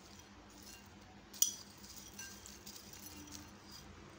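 A glass bowl clinks once, sharply, against a glass mixing bowl about a second and a half in, amid faint rustling of dry fried farsan being tipped in.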